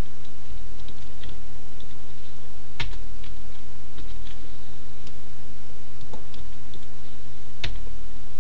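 A few separate keystrokes on a computer keyboard, sparse taps rather than fast typing, the loudest about three seconds and nearly eight seconds in, over a steady low electrical hum.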